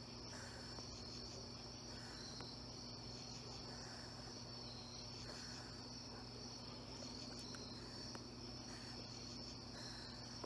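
Crickets chirping continuously, a steady high trill, with a low steady hum beneath.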